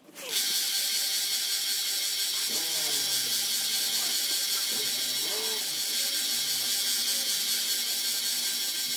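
Small benchtop belt-and-disc sander running, a steel knife blade held against its narrow belt and being ground: a steady high hiss that starts suddenly just after the start.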